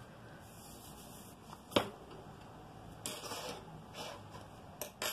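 Soft rustling of etamine cloth being folded and handled by hand, with one sharp tap a little under two seconds in.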